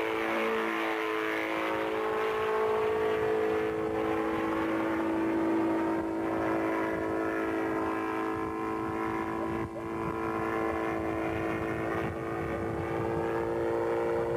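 Small engine of a single-seat ultralight rotorcraft in flight, a steady droning hum that holds its pitch.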